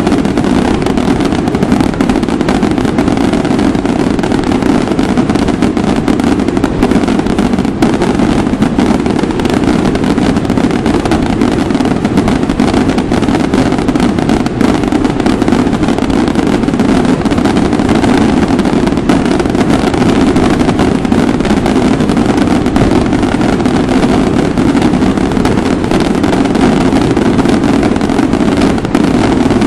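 Daytime fireworks barrage: firecrackers going off in a dense, unbroken run, the bangs merging into one steady, loud din.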